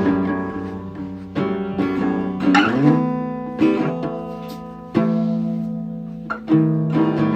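Music: plucked acoustic guitar chords and notes, each struck and left to ring out, with a slide up about two and a half seconds in.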